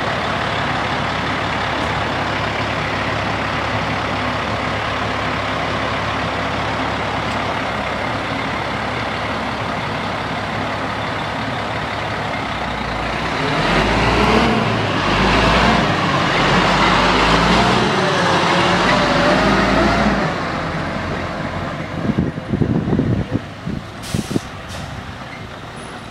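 Freightliner garbage truck's diesel engine idling steadily, then revving louder as the truck pulls away, its pitch rising and falling for several seconds before easing off. Near the end come clattering knocks and a short hiss of air from the air brakes.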